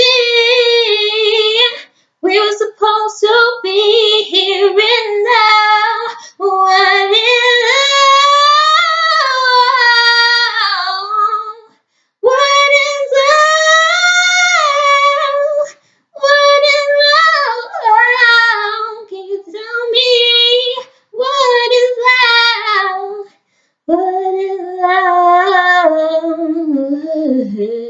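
A woman singing unaccompanied, in long phrases whose pitch bends and wavers, split by short pauses. Near the end the line falls away.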